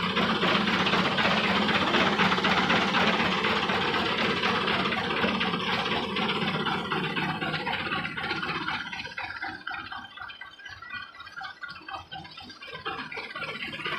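Fiat 640 diesel tractor engine running close by; about two-thirds through it drops off as the tractor pulls away, its separate low firing knocks coming through, and it grows louder again near the end.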